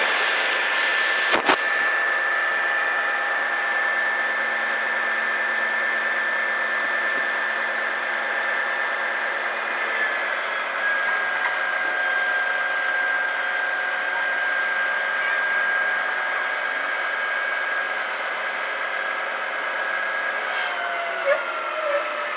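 Dump truck's diesel engine running with a steady high whine as the hydraulic hoist raises the bed to tip gravel; the whine drops in pitch about ten seconds in and again near the end. A sharp click about a second and a half in.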